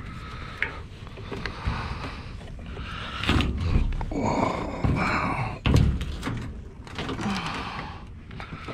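Scrap metal being handled and moved: irregular clunks and scraping, with two heavier knocks about three and a half and nearly six seconds in.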